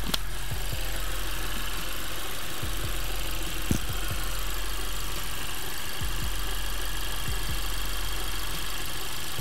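Honda Civic Type R FK8's turbocharged 2.0-litre four-cylinder engine idling steadily while it heat-cycles to push air out of the freshly refilled cooling system through the coolant funnel. Two short sharp clicks, one at the very start and one a little under four seconds in.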